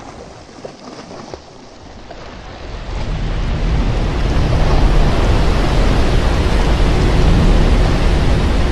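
Ocean waves and wind, fairly quiet at first, then swelling about three seconds in into a loud, steady rush.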